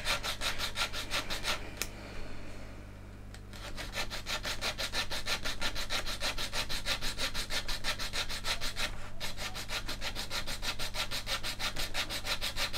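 Tamiya razor saw cutting through a resin cockpit part to take off its pour stub, in quick, even back-and-forth strokes several times a second. The sawing eases off for about a second and a half after two seconds, then resumes.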